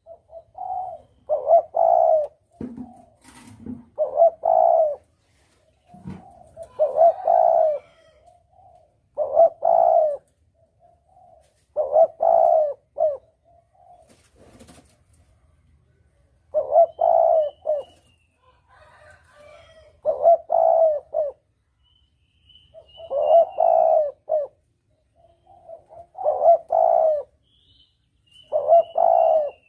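Spotted dove (tekukur) cooing over and over as a hunting lure call, in short phrases of a few coos every two to three seconds. Faint high twittering from another bird comes in over the second half.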